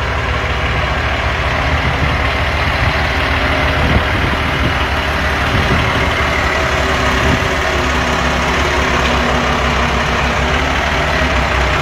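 Forklift engine running steadily while the forklift works the heavy machine onto the truck. A single brief knock comes about four seconds in.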